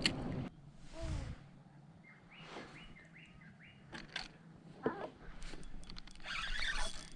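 Birds calling: a falling call about a second in, then a quick run of four short chirps. Scattered clicks and a brief burst of noise follow near the end.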